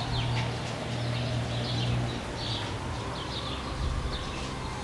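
Birds chirping and calling, short repeated chirps, over a steady low hum.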